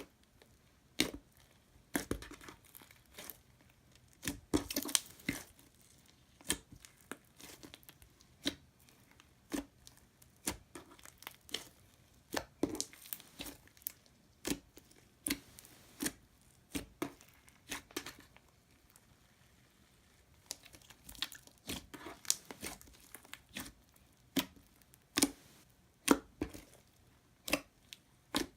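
Homemade glue slime, with spaghetti and bits of memory foam mixed in, squished and stretched by hand for ASMR: irregular sharp pops and crackles, about one or two a second, some coming in quick clusters.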